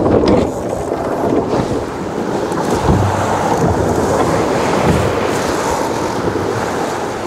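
Water rushing and splashing along the hull of a J70 sailboat driving hard through waves in strong wind, with wind rumbling on the microphone; heavier rumbles come about three and five seconds in.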